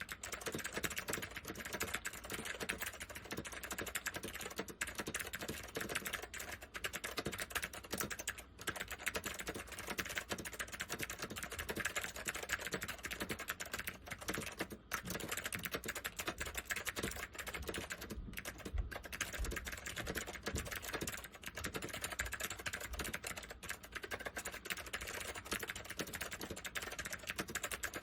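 Fast continuous typing on a Northgate OmniKey 101 mechanical keyboard with waxboiled SKCM white Alps switches: a dense stream of key clicks with only brief pauses.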